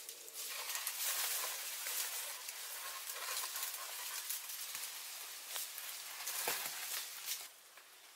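Dense rustling and crackling noise with many scattered clicks, stopping abruptly about seven and a half seconds in.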